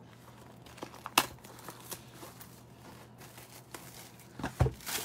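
Cardboard trading-card box being handled and opened by hand: scattered crinkles and small tearing clicks, then a dull thump near the end as the box is tipped and set down.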